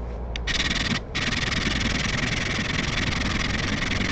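Steady hissing abrasion as the rusty steel back of a chisel is polished shiny on an abrasive surface, with a brief break about a second in.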